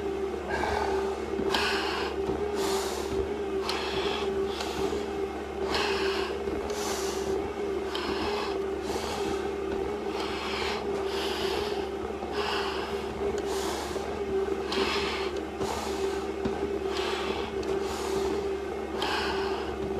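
A firefighter breathing hard through an SCBA full face mask under the strain of a long stair climb. Each breath comes as a short hiss of air, about one a second, over a steady hum.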